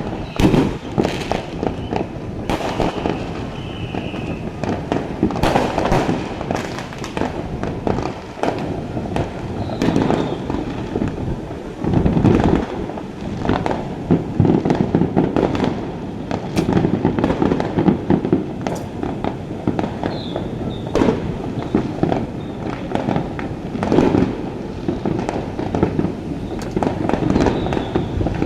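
Aerial fireworks display: bangs and crackling bursts going off in quick succession without a break, some clusters louder than others.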